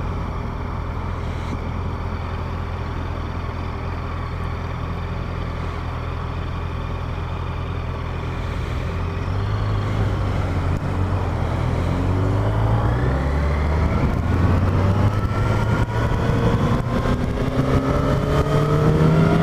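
Yamaha FZ8's inline-four motorcycle engine idling steadily, then pulling away about nine seconds in, its pitch climbing as it accelerates.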